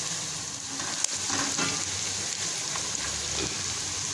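Sliced onions sizzling in hot oil in a pot, a steady frying hiss, with a sharp click about a second in. A silicone spatula is stirring them through the oil.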